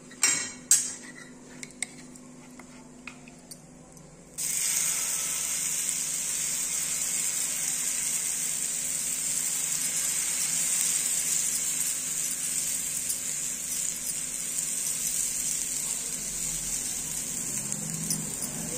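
A couple of clinks of a spoon against a bowl at the start. About four seconds in, a steady sizzle starts suddenly and keeps going: chickpea-flour and green-pea batter frying in oil on a hot iron tawa as it is spread with a spoon.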